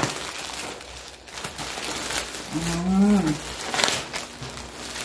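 Plastic packaging rustling and crinkling in scattered short bursts as a parcel is unwrapped, with a short wordless voice sound that rises and falls about three seconds in.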